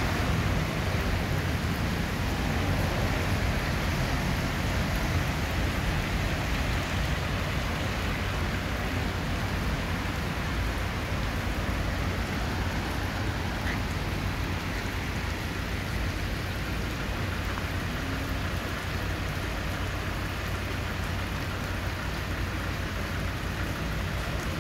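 Heavy rain falling on a wet city street and pavement, a steady, even hiss.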